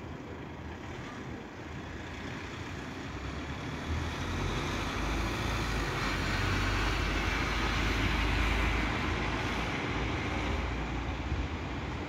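A motor vehicle driving past on the street, its engine and tyre noise swelling over a few seconds and then fading, over steady street background noise.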